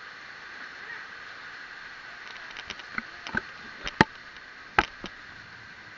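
Steady hiss of heavy rain, with a string of sharp impacts in the second half, two of them louder about four and five seconds in.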